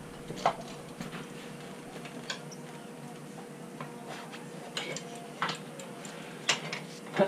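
Scattered metal clicks and clinks of tire irons being worked in between a motorcycle tire's bead and the rim, about half a dozen spread over a few seconds, the loudest near the end.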